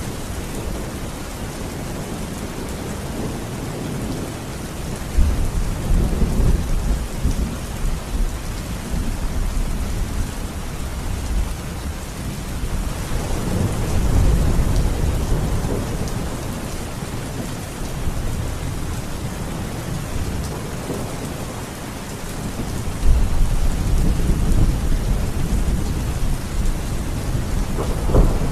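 Steady rain with thunder rolling three times, low rumbles that swell and fade over a few seconds each.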